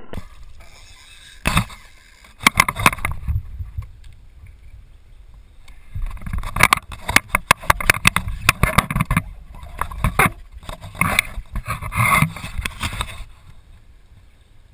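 Irregular knocking and clattering around a kayak, with water splashing. The knocks come in bursts through most of the stretch and die away near the end.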